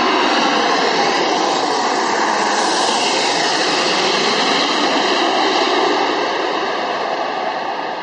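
Jet engines of a four-engine airliner on landing approach, gear down, passing low overhead: a loud, dense rush with tones that slide down in pitch as it goes over. It fades over the last couple of seconds as the plane moves away.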